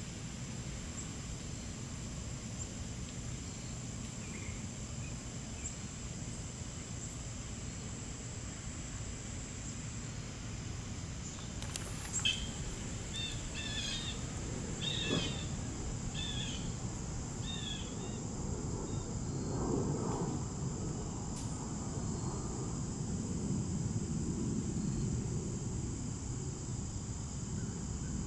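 Yard ambience: a steady high-pitched insect drone, with a bird giving a quick run of five or six short chirps about halfway through, over a low background rumble.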